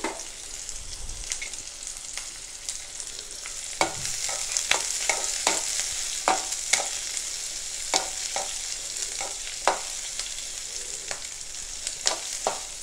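Chopped onions sizzling in groundnut oil in an aluminium kadai, a steady frying hiss. From about four seconds in, a spatula scrapes and taps against the pan in irregular clicks as the onions are stirred.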